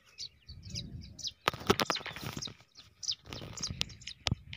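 Small birds chirping in quick, repeated short calls, with a few sharp clicks and rustles mixed in.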